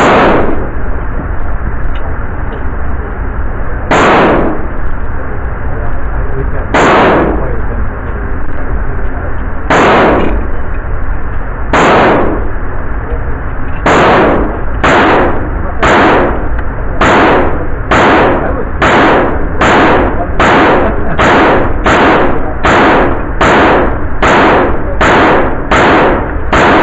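Semi-automatic PPS-43 in 7.62x25mm firing single shots in an indoor range booth: about two dozen sharp reports, the first few spaced several seconds apart, then coming faster at roughly one or two a second from about halfway in.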